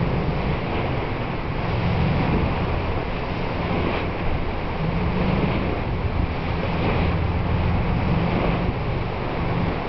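Wind buffeting the microphone over open sea, a steady rushing noise with a low, uneven rumble underneath.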